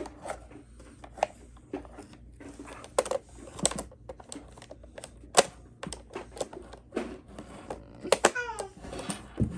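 Irregular clicks and knocks of wooden toy pieces being handled and fitted into a Melissa & Doug doorbell house, some sharp and louder than others.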